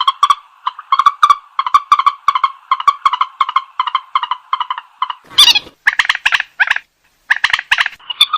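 White-breasted waterhen calling: a fast string of repeated harsh notes, about three a second, with a louder, rougher call a little past five seconds in and a short break near seven seconds.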